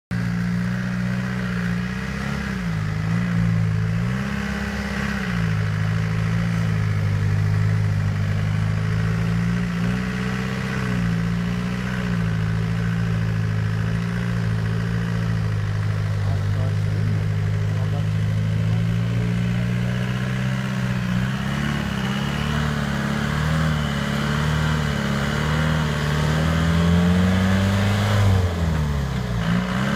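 Land Rover Defender's turbocharged 2.9-litre engine working under load as the truck crawls through a deep rut, its revs rising and falling repeatedly as the throttle is fed in and backed off.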